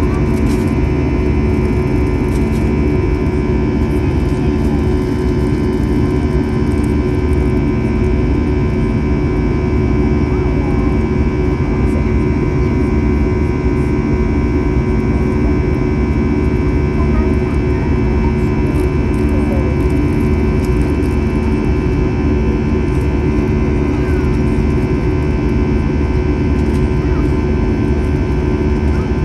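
Airbus A321's CFM56-5B turbofan engines heard from inside the cabin in the climb: a loud, steady rumble carrying many steady whining tones, the buzz of the fan at climb thrust.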